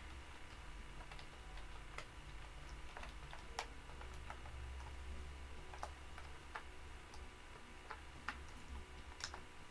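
Faint, scattered single clicks of computer keys at irregular spacing, roughly one every second, over a low steady hum.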